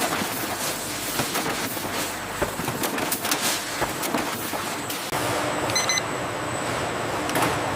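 Factory machinery clattering with a dense run of rapid clicks and knocks. About five seconds in it cuts abruptly to a steadier machine hum with a short, high electronic beep.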